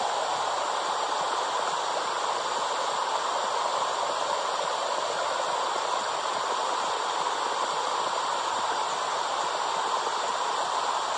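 Womb sound for soothing babies: a steady, even rushing hiss that sits in the middle pitches, with no breaks or changes.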